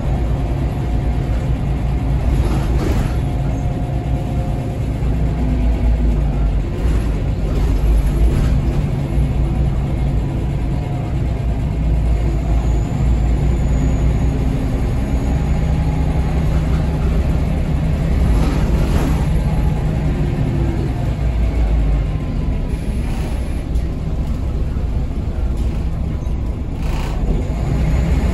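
Interior of a Scania L94UB city bus under way: its Scania DSC9 diesel engine and ZF Ecomat automatic transmission running with a steady low rumble, the engine note rising and falling with speed. A few brief knocks and rattles from the body come through at intervals.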